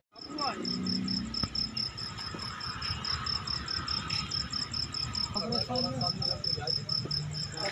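Crickets chirping in a steady, rapid, evenly spaced pulse.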